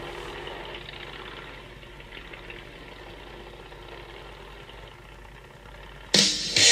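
An engine idling steadily and fairly quietly. Near the end, loud electric-guitar rock music with drums cuts in suddenly.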